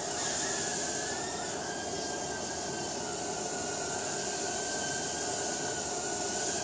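Eachine E010 micro quadcopter's small coreless brushed motors and propellers whining steadily in flight, the pitch wandering slightly up and down as the throttle changes.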